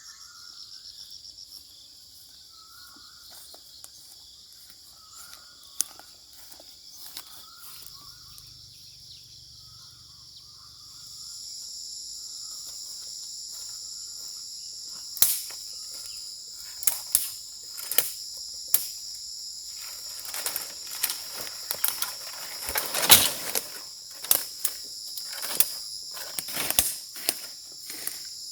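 Steady high trilling of insects, with faint short chirps in the first part. The trilling gets louder about a third of the way in. From about halfway on, a string of sharp cracks and knocks comes in irregular clusters, the loudest about three quarters of the way through.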